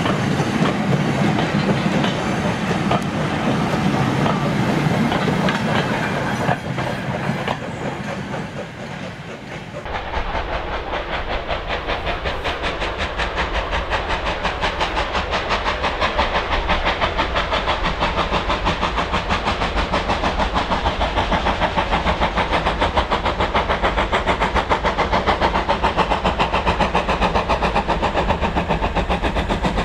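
Wagons of a goods train rolling past, wheels clicking over the rail joints. About ten seconds in this changes to the rapid, even exhaust beats of LMS Ivatt class 2MT tank engine 41312 working a freight train towards the listener, growing gradually louder.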